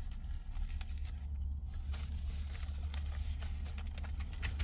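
Quiet chewing of a mozzarella-and-batter Korean corn dog, faint crackles and clicks, over a steady low hum.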